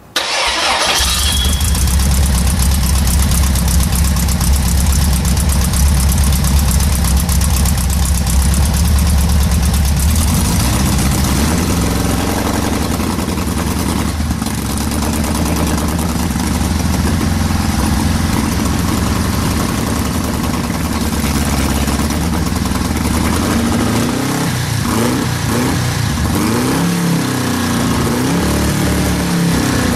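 Air-cooled Volkswagen-type flat-four engine on a run stand, fitted with electronic ignition, starting up and running. It runs steadily at first, its speed shifts about ten seconds in, and in the last several seconds it revs up and down repeatedly while the carburettor is adjusted by hand during tuning.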